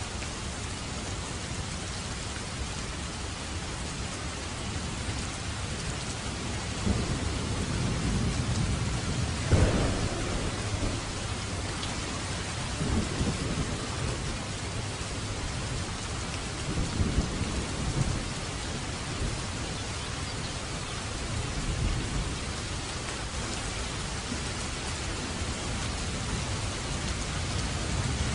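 Steady rain falling, with thunder rolling in about seven seconds in: it peaks around ten seconds and rumbles on in a few lower waves until about eighteen seconds.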